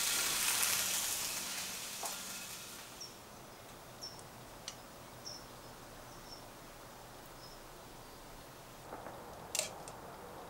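Frying-pan sizzle fading out over the first two or three seconds, leaving a quiet kitchen. A few faint clicks and short high chirps follow, with a sharper click near the end.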